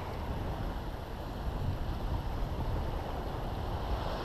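Wind buffeting the microphone over the wash of small waves on the beach, a steady noise that swells slightly near the end.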